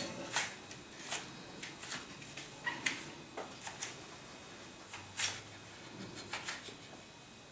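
Scattered short clinks and clicks of dishes and utensils being handled at a kitchen sink, a dozen or so at irregular intervals, over a quiet room.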